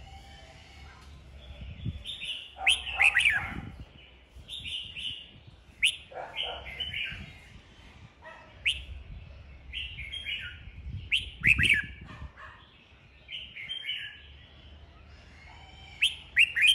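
Red-whiskered bulbul singing in short, loud, chirping phrases every second or two, with sharp sweeping notes. The phrases are loudest about three seconds in, again near the middle, and near the end.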